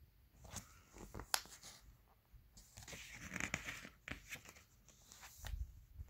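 Paper catalog pages being handled and turned by hand: a few crisp snaps of paper, then a longer rustle as a page slides over, then more snaps.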